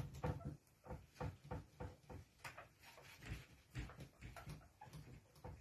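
Whiteboard being wiped clean by hand, a quick run of faint rubbing strokes, about three a second.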